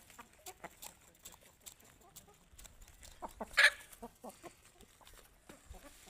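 Asil chickens clucking softly while one pecks seed from a bare palm, making a scatter of quick beak taps. A single louder, short harsh sound comes about three and a half seconds in.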